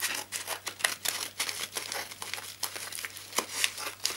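Scissors cutting open a padded bubble mailer: an irregular run of sharp snips and crinkles of the envelope.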